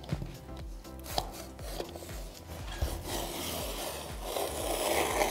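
Plastic wallpaper spatula rubbing and scraping over fleece lining paper, pressing it into the bottom edge of the wall. A few light taps come first, then a steadier scraping that grows louder over the last couple of seconds.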